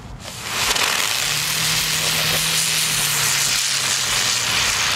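Ground fountain firework hissing steadily as it sprays sparks. The hiss starts about half a second in, once the fuse catches.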